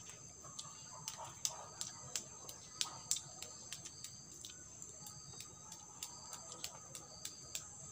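Bubble gum being chewed close to the microphone: irregular sharp wet clicks and smacks, a few a second and loudest in the first half. Behind them is a steady high-pitched drone of insects.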